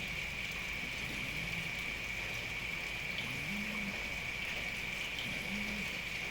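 Sleeping cat snoring, three short low snores about two seconds apart, one with each breath, over a steady hiss of rain.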